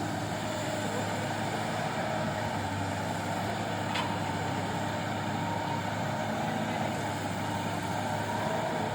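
Rhino REX215 grapple excavator's diesel engine running steadily, with a single sharp click about four seconds in.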